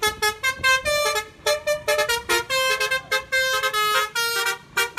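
A quick tune played in short horn toots, one note after another at changing pitches, several notes a second.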